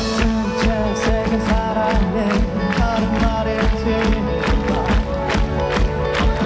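Live rock band playing: electric guitar over a steady drum beat.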